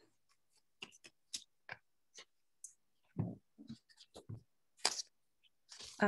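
A quiet room with a string of faint short clicks and taps, and a few soft duller sounds a little past the middle.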